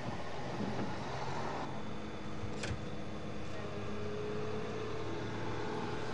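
Vehicle engine hum and road noise heard from inside a moving car, steady throughout, with a single sharp click about two and a half seconds in.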